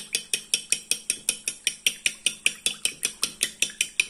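Two eggs being beaten by hand in a bowl, the utensil clicking against the bowl in a fast, even rhythm of about six strokes a second.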